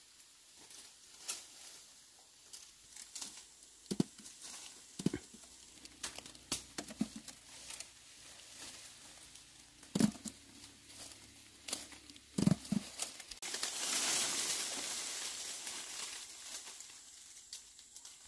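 Rustling and snapping of leaves and twigs as rambutan fruit is picked, with soft knocks of fruit dropping into a woven bamboo basket. About two-thirds of the way in, a longer leafy rustle starts as branches are pulled, then fades.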